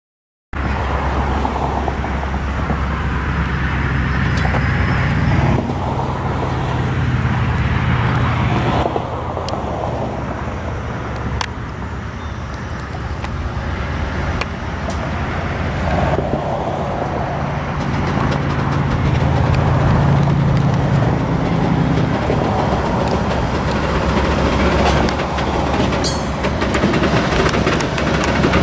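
Metra commuter train approaching and passing close by, cab car leading its stainless-steel bilevel gallery cars: a steady low rumble that grows louder as the train nears, with a brief high squeal near the end.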